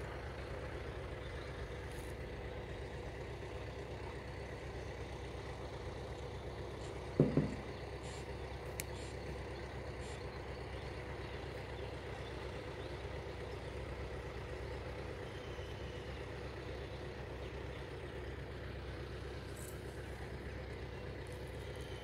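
Steady low background rumble with a faint hum, and a short dull thump about seven seconds in.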